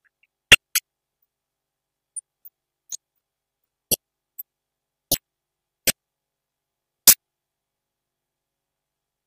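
About ten short, sharp clicks scattered irregularly over dead silence, the loudest about half a second in and about seven seconds in.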